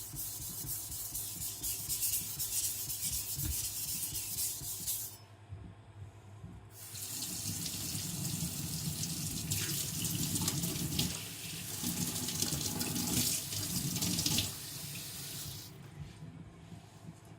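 Water running from a tap in two spells, about five and nine seconds long with a short break between, as black steel swarf is rinsed off during whetstone sharpening.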